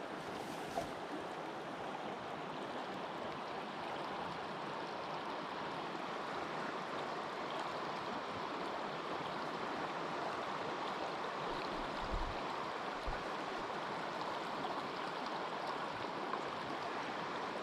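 Small mountain creek flowing, a steady even rush of water.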